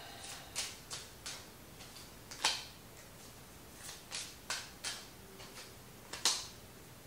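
Tarot cards being handled: a string of light, irregular clicks and snaps as cards are drawn and laid down, two of them sharper than the rest, about two and a half seconds in and near the end.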